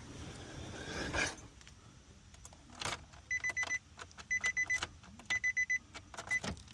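A freshly cut key clicking and rattling as it is tried in a 2019 Nissan Sentra's ignition, with the car's warning chime sounding in quick groups of short high beeps about once a second; the key works the door lock but will not turn the ignition.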